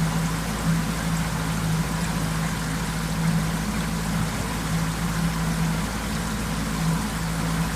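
Boat motor running steadily with a constant low hum, over the rushing of water.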